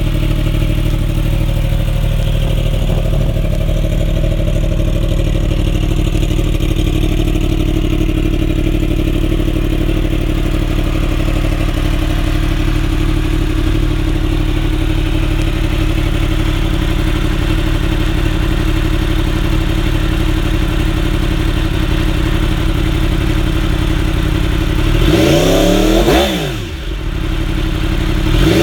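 2015 Yamaha R1's crossplane inline-four running at a steady idle through a Graves aftermarket exhaust. Near the end it is revved once, the pitch climbing and falling back, and a second rev starts just before the end.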